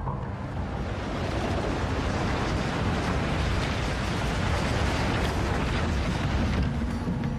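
Ride-film sound effect of a huge boulder rolling down a mine tunnel: a dense, steady rumble that swells through the middle, with the music dropping out until near the end.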